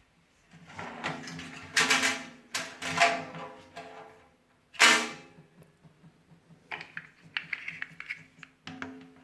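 Hollow knocks and clatters of a wet-and-dry vacuum cleaner's parts being handled, a few with a short ringing tone. The loudest knock comes about five seconds in, followed by lighter clicks.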